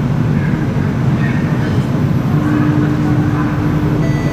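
Steady low hum of a Singapore MRT train standing at a platform with its doors open, with station ambience coming in through the doorway. A steady tone sets in about halfway through.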